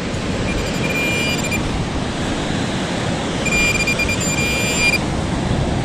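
Metal detector sounding a steady high electronic tone twice, about a second each, as it picks up a buried $2 coin, over a steady wash of surf.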